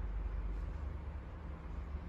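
RC truck engine sound module playing a steady simulated diesel truck idle, a low even rumble.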